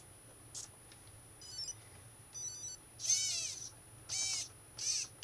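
Brushless ESC powering up and playing its start-up beeps through the motor: two short runs of steady beeps stepping between a few pitches. They are followed by four louder, short pitched sounds that bend up and down in pitch.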